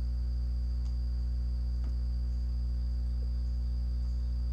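Steady low electrical hum with a thin, unbroken high-pitched whine above it, and a few faint clicks.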